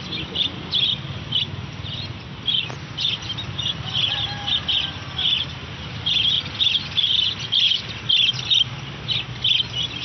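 Many small caged birds chirping in quick, repeated clusters of short high chirps, over a low steady background hum.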